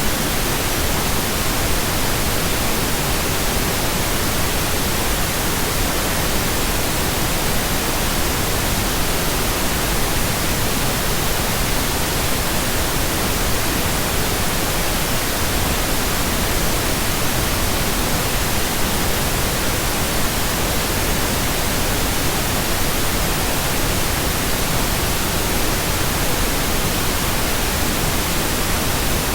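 Steady synthetic pink noise: an even, unchanging hiss across the whole range, generated as a 'frequency' audio track.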